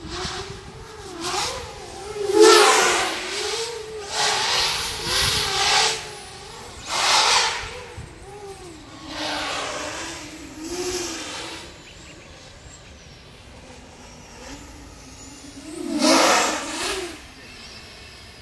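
X-Class FPV racing quadcopter on 12S power with Xnova 350Kv motors, buzzing in flight, its pitch rising and falling constantly with throttle. It swells loudly several times, most strongly a couple of seconds in and again about sixteen seconds in.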